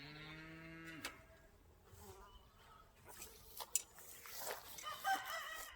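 Honeybees buzzing around an opened hive, with one bee's hum rising in pitch and holding close by until about a second in, then fainter buzzing with a few sharp knocks of frames being handled.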